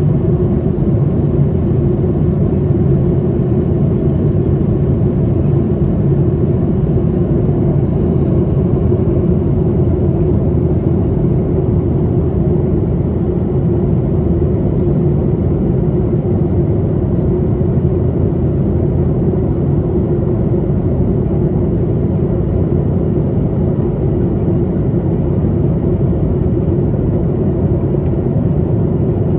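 Steady cabin noise inside a Boeing 737-800 climbing after takeoff: its CFM56-7B engines and the rushing airflow make an even, low drone.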